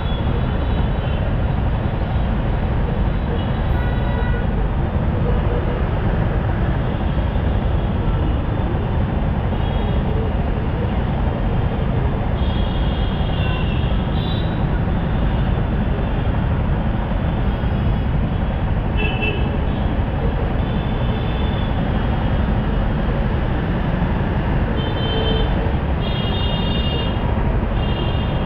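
Stopped road traffic: a steady rumble of idling motorcycle and car engines, with short vehicle-horn toots several times, mostly around halfway and near the end.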